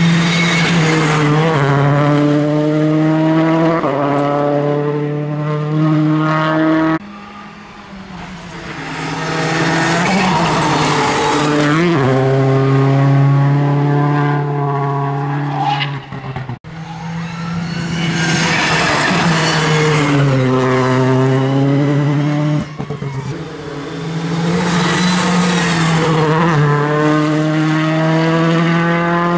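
Citroën C3 Rally2 car's turbocharged four-cylinder engine driven hard on a test stage: revving up through the gears, the pitch climbing and dropping back at each shift and for each corner, over several passes. The sound breaks off abruptly three times where one pass is cut to the next.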